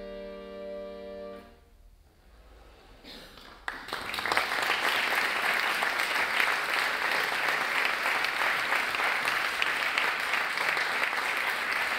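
Piano accordion holding a steady chord that stops about a second and a half in. After a short pause, audience applause starts about four seconds in and continues.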